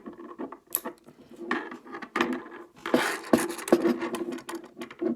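Handling noise from fitting a rubber band onto a metal slingshot fork and fastening it: irregular rubbing, scraping and light metallic clicks.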